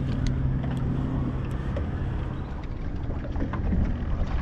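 Steady low hum of a boat's motor under a rushing wash of wind and water.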